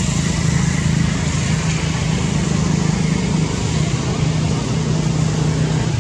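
A steady low motor hum under a loud, even hiss, running unchanged throughout.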